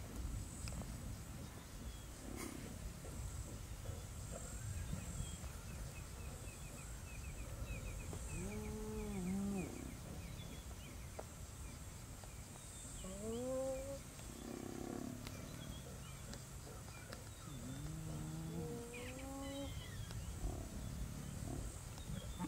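Spotted hyenas giving several short, low calls that arch and rise in pitch, a few seconds apart, over a steady high insect drone.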